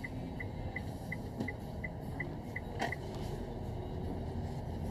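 Inside-cabin running noise of a Mitsubishi Xpander Cross driving slowly: a steady low rumble. Over it, turn-signal ticking at about three ticks a second stops about three seconds in, with a single knock just before it ends.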